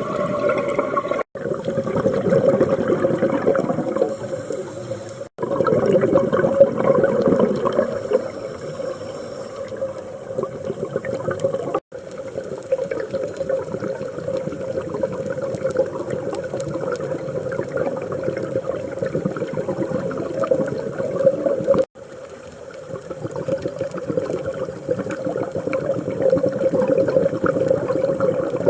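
Scuba diver breathing underwater through a regulator: the air rush of each breath and the gurgle of exhaled bubbles, swelling and fading in long cycles. Four brief sudden dropouts break it up.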